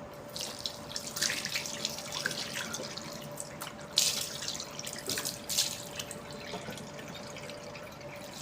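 Water from a tap running and splashing unevenly in a sink, with a faint steady hum underneath.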